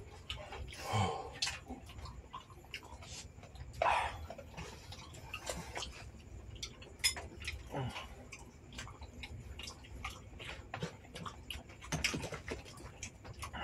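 Eating at close range: oyster shells clicking and knocking as they are picked from the pile, with chewing and slurping. The clicks come at irregular times, with a few louder bursts.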